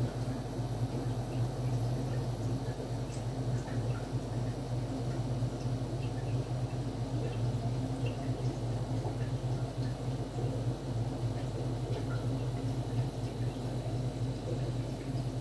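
A steady low hum with faint, scattered small ticks and drips of water.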